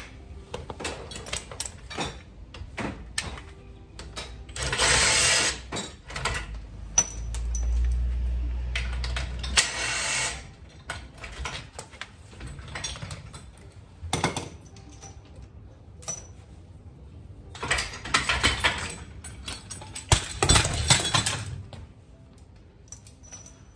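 Cordless impact driver undoing the jockey wheel clamp bolts on a camper trailer drawbar in about five short bursts, with small metallic clicks and knocks between them.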